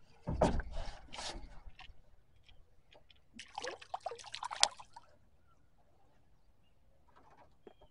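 Water splashing and dripping as a hooked fish is brought up at the surface, in two short bouts a few seconds apart.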